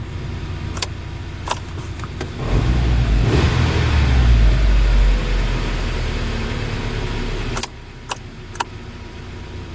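UAZ Patriot engine idling, with the auxiliary heater circulation pump inaudible beneath it. About two and a half seconds in, a much louder low rumble with a slowly falling whine joins for about five seconds and cuts off suddenly. A few sharp clicks come before and after it.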